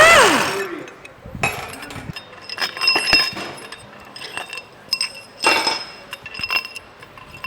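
Steel pump parts clinking against each other, the loose tie rods and fittings ringing after each knock. A short whine rises and falls right at the start.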